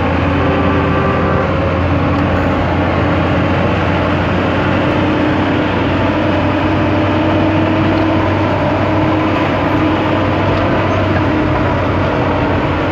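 Steady engine and road noise inside the cabin of a Land Rover Defender on the move, with a deep drone and a faint wavering whine above it.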